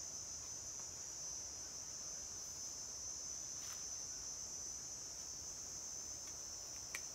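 Steady high-pitched chorus of forest insects, unbroken throughout, with a faint click midway and a sharper click near the end.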